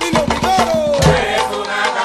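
Salsa music playing, with steady percussion and a pitched melodic line that slides down in pitch about half a second in.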